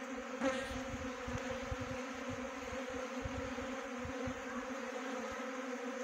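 Steady hum of a honey bee swarm in flight, many bees buzzing at once around wooden hive boxes. About half a second in, a brief louder falling sweep stands out over it.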